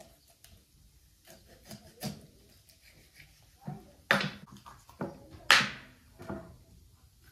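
Knife cutting up a raw whole chicken on a wooden table: scattered soft cuts and taps, with two louder knocks about four and five and a half seconds in.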